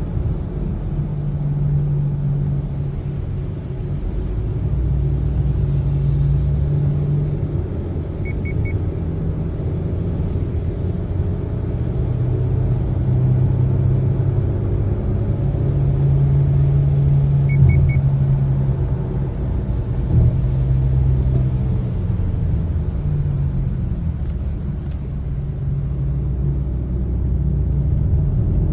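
Road noise inside a moving 2020 Subaru Ascent, with a low hum that swells and fades several times: the low humming noise that the owner is complaining about. Twice, about nine seconds apart, a quick triple beep sounds.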